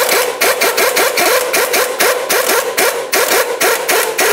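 Impact wrench hammering in rapid, even blows, about six or seven a second, its motor note dipping with each blow, as it runs the upper ball joint nut snug on the new steering knuckle.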